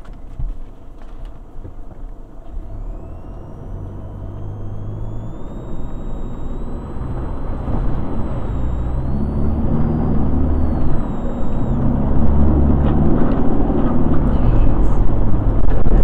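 Toyota Prado 150's engine pulling steadily through a flooded creek crossing, heard from inside the cabin, with water rushing and splashing against the vehicle. The splashing grows louder as the water gets deeper.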